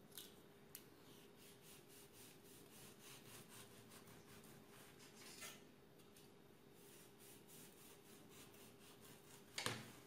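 Knife sawing back and forth through a crusty homemade white bread loaf, faint rasping strokes. A louder knock comes near the end.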